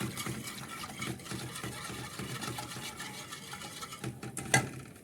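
A utensil stirring béchamel sauce in a pot, a quick run of small scrapes and ticks against the pan, with a sharp knock near the end.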